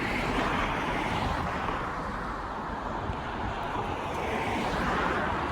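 Steady road traffic passing: tyre and engine noise that swells and eases as vehicles go by.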